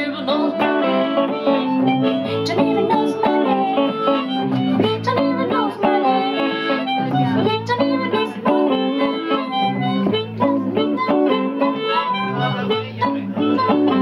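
Harmonica playing sustained melodic lines over a hollow-body electric guitar strumming and picking chords.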